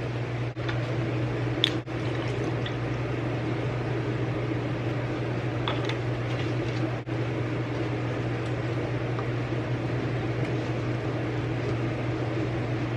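Steady rushing sound like water running, over a constant low hum, with a few light clicks.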